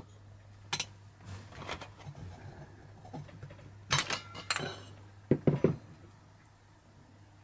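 A new piston sliding through the re-sleeved cylinder bore of a Honda Super Cub engine and being drawn out, a test of a tight piston-to-bore fit, with several separate metal clinks and knocks, the loudest about four seconds in and again about a second later.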